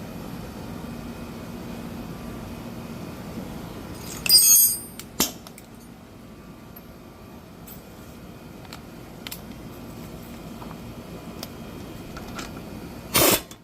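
Wheel lug nuts being tightened with a torque wrench set to 100 ft-lb: short sharp clicks as it reaches torque, about four seconds in, again a second later and near the end, with faint ratchet ticks between. A low steady hum fades out about four seconds in.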